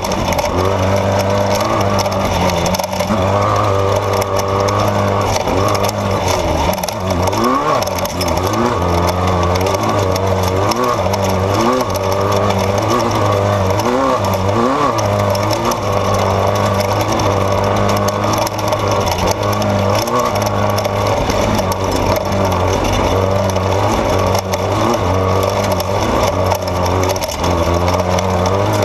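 Off-road race vehicle's engine running hard, its revs rising and falling over rough desert terrain.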